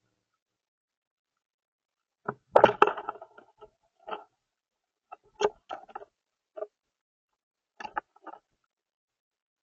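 Irregular bursts of light tapping and rustling in a few clusters, starting about two seconds in.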